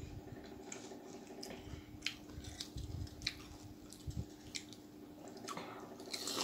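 Pani puri being eaten by hand: crisp puri shells crackle as they are poked open and dipped into a steel bowl of pani, with small wet squishes. There is a louder wet crunch near the end as one goes into the mouth.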